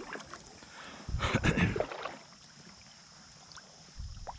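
Kayak paddle strokes: the blade dipping and pulling through calm water, with a louder splashing stroke about a second in and a lighter one near the end, and small drips and knocks between.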